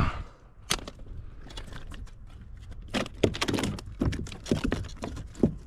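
Scattered light clicks, taps and knocks from handling a freshly caught speckled trout and gear aboard a kayak, with a quick cluster about three seconds in.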